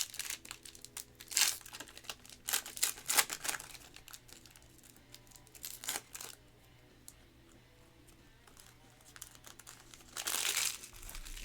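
Trading card pack wrappers crinkling and tearing as packs are opened and cards handled, in quick bursts of crackling over the first few seconds, once more around the middle, and a longer stretch near the end.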